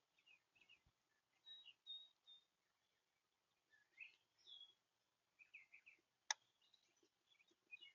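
Faint birds chirping: short, scattered high chirps and brief whistled notes, in small clusters. A single sharp click about six seconds in is the loudest sound.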